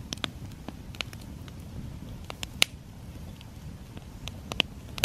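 Wood campfire crackling, with irregular sharp pops over a low steady rumble.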